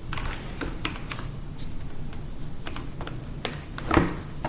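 Irregular light clicks and taps of a tool prying at the keyboard of a 2006 MacBook, with a louder knock about four seconds in.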